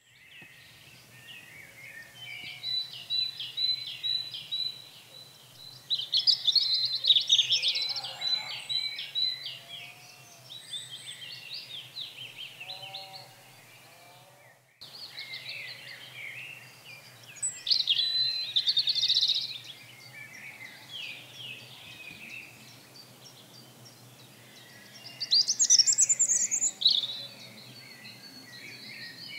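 Songbirds singing: overlapping high, twittering and trilling phrases that come in louder spells a few seconds long. The sound cuts out for a moment about halfway through, and a faint low hum runs underneath.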